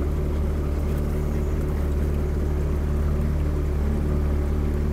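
Small boat's outboard motor running steadily underway, a constant low drone with a steady hum above it.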